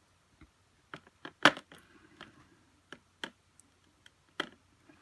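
Light clicks and taps of small plastic doll accessories and packaging being handled, about nine sharp scattered clicks with the loudest about a second and a half in.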